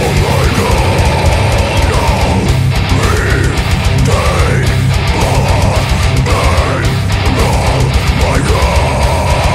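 Brutal death metal recording: heavily distorted guitars and bass over dense, fast drumming, loud and unbroken. Rising-and-falling high glides recur every second or two.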